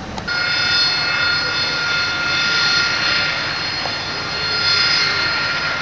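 Aircraft turbine engine running with a steady high-pitched whine over a rushing roar; it cuts in just after the start and holds steady.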